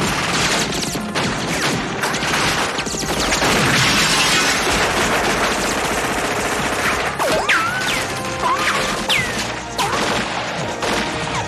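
A heavy film firefight: continuous automatic gunfire from several guns, with crashes of things being hit.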